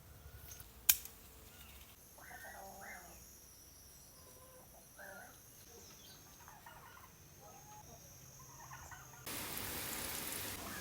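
Farmyard fowl calling in several short, separate bursts. A single sharp click comes about a second in, and a steady rushing noise starts near the end.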